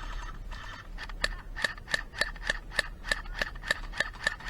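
Airsoft gun firing a quick string of single shots, about a dozen sharp clicks at three or four a second, starting a little over a second in.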